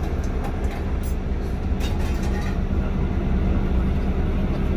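Steady low engine hum, heard inside a parked vehicle's cabin, with a few light clicks in the first half.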